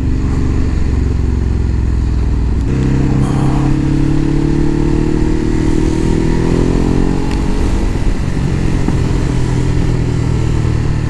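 Motorcycle engine running under way. About three seconds in its note changes, then rises steadily for a few seconds as the bike accelerates, before holding speed.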